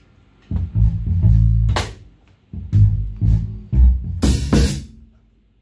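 Live band of electric guitar, bass guitar and drum kit playing a run of short accented hits, with cymbal crashes about two seconds in and again about four seconds in, then dying away.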